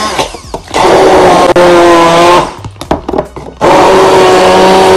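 Stick (immersion) blender puréeing watery green tomatoes, switched on in two bursts of a little under two seconds each with a short pause between; the motor whine holds a steady pitch through each burst.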